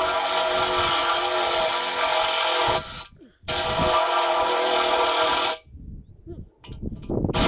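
Cordless drill running with a twist bit boring into an aluminium awning pole: a steady motor whine for about three seconds, a brief stop, then about two seconds more. The bit is dull and cuts the aluminium poorly.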